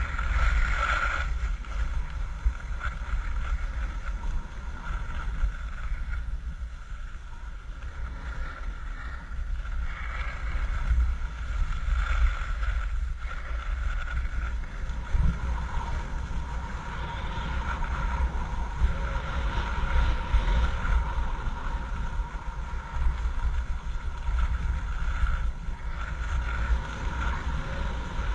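Wind buffeting a body-worn camera's microphone as a skier runs downhill, a steady low rumble, with the hiss and scrape of skis over packed snow.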